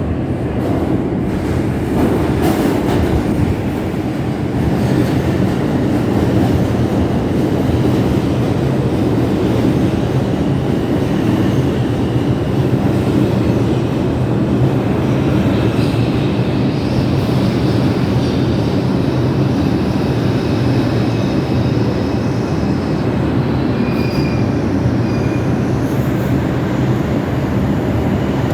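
New York City 2 subway train running through the tunnel, heard from inside the car: a loud, steady rumble of wheels on rails. Faint high wheel squeal or whine comes in over the second half.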